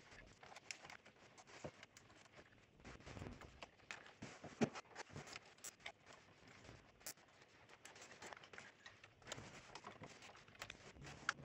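Faint scattered clicks, taps and wire rustling as plastic wire-harness connectors are unplugged from an amplifier's power supply board, with a sharper click about four and a half seconds in.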